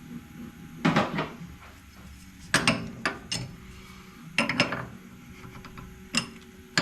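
Metal clicks and clatter in several short bursts as a touch probe is turned and seated into the CNC mill's spindle until it locks, over a faint steady hum.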